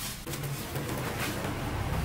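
Background music with drums and a low bass line that comes in shortly after the start and grows louder.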